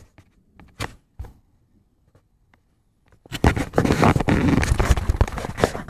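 A few faint clicks, then about three seconds in a loud, rough scraping and crackling noise on the microphone starts suddenly and keeps on, full of small clicks.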